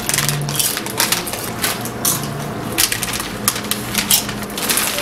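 Doritos tortilla chips crunching: a rapid, irregular run of crisp, loud crunches.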